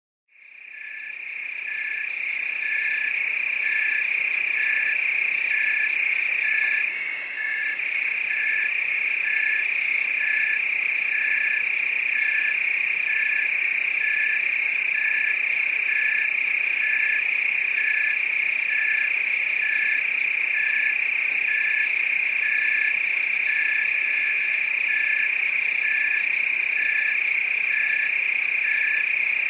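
Night chorus of crickets and frogs: a steady high-pitched cricket trill with a regularly pulsing call just below it, repeating about one and a half times a second. It fades in over the first few seconds and briefly dips a few seconds later.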